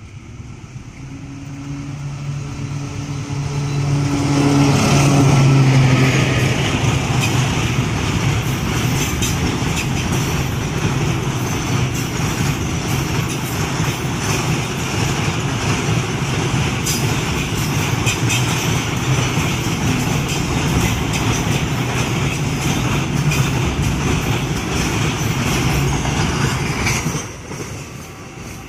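Locomotive-hauled train passing at speed. The locomotive's engine drone builds up and goes by about five seconds in, then the carriages' wheels rumble and clack over the rail joints steadily. The sound drops away sharply as the end of the train passes near the end.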